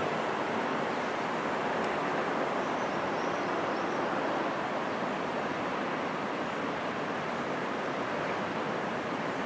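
Steady, even din of distant city traffic heard from a hilltop, a constant hiss-like wash with no single vehicle standing out.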